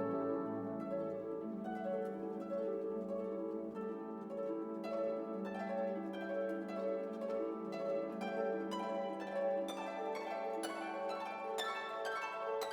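Background music: orchestral piece with plucked harp and pizzicato string notes over a held low string line.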